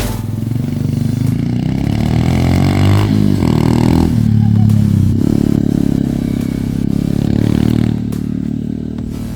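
Honda CRF110F pit bike's single-cylinder four-stroke engine running under riding, its pitch rising and falling with the throttle.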